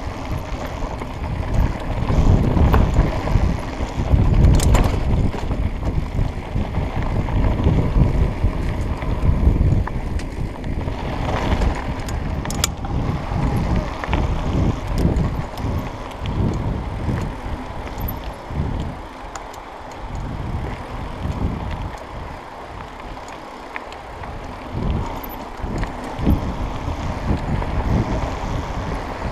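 Mountain bike descending a rough dirt singletrack trail: a jolting rumble of tyres and frame over the bumps, with wind buffeting the microphone and a few sharp knocks. Louder in the first half, easing off somewhat after the middle.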